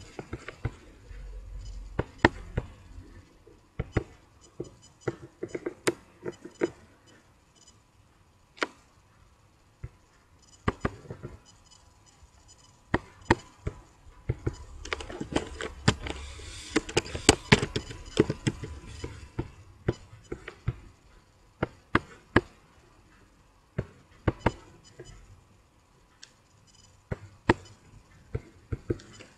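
Irregular sharp clicks and taps of a computer mouse and keyboard, some coming in quick runs of keystrokes.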